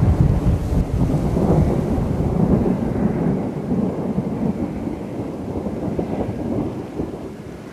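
Rolling thunder: a long, deep rumble that slowly dies away.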